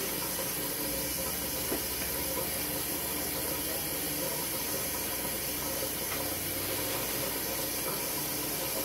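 Kitchen tap running in a thin steady stream into a stainless-steel sink, an even hiss, with one small tick about two seconds in.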